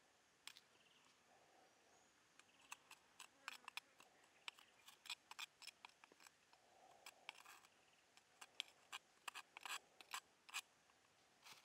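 Metal knife blade scraping and tapping against a stone mortar, knocking ground spice mix out onto raw salmon. It comes as a run of quick, sharp scrapes and clicks that start a couple of seconds in.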